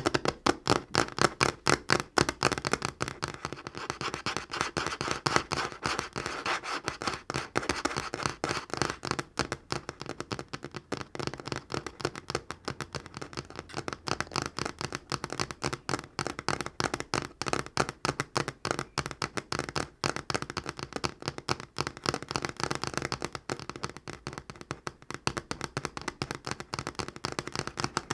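Natural fingernails tapping fast on a tabletop: a dense, continuous run of quick taps, several a second.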